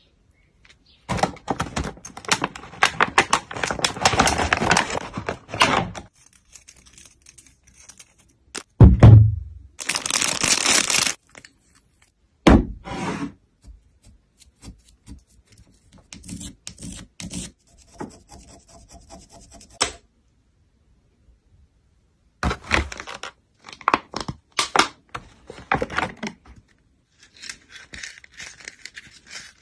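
Hard shells of surprise eggs being chipped and broken open by hand with a tool: clusters of cracking, scraping and crumbling, with a heavy thud about nine seconds in.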